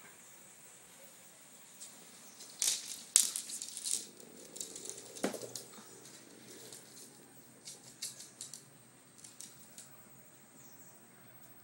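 A chihuahua playing with a ball on a hard floor. A flurry of clicks and scuffles comes about three seconds in with one sharp loud click, a duller knock follows about five seconds in, then scattered light clicks.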